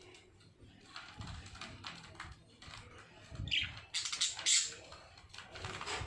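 Budgerigars in a wire cage: a run of light clicking and pecking, with two louder short bursts a little past the middle.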